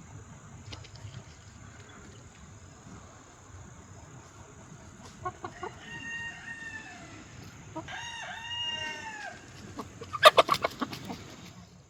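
Chickens: a rooster crows twice, each crow about a second long, then a burst of quick, sharp clucks near the end. Crickets trill steadily underneath.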